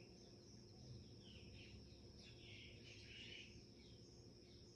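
Near silence: a quiet background with a few faint, distant bird chirps, a steady high-pitched whine and a low hum.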